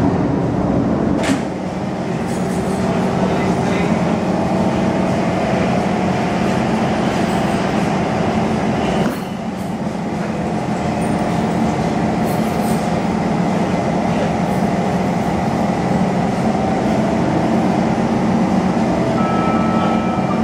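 An SMRT C151 metro train standing at the platform, its steady equipment and ventilation hum running throughout. A sharp click comes about a second in, and the train's doors and the platform screen doors open.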